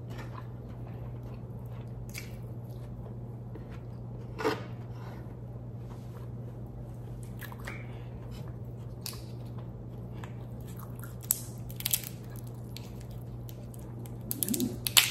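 Close-miked eating sounds: chewing, with scattered small clicks and crackles of crab shell being picked apart by hand. A sharper crunch comes about four and a half seconds in and a quick run of louder ones near the end.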